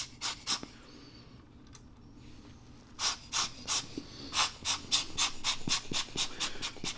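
Rubber hand air blower squeezed again and again, puffing short bursts of air to blow dust out of a camera's exposed rangefinder mechanism: a few puffs at first, a short pause, then a quick run of puffs, about three a second, from about three seconds in.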